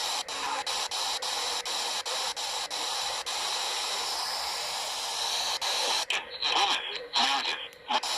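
Radio static: a steady hiss from a weather-radio receiver on a weak signal, broken by short regular dropouts. From about six seconds in the hiss breaks up and a faint, garbled voice comes through.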